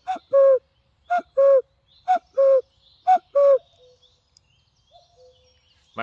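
A man imitates the common cuckoo's two-note "cu-ckoo" call by blowing into cupped hands. He gives four calls, each a higher note falling to a lower one, about one a second.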